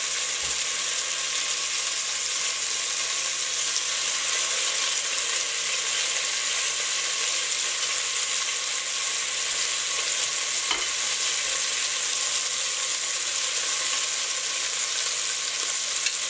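Boneless short rib chunks searing in very hot olive oil: a steady, even sizzle.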